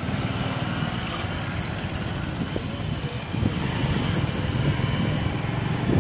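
Motorcycle engine running steadily while riding, heard from the pillion seat, with road and wind noise.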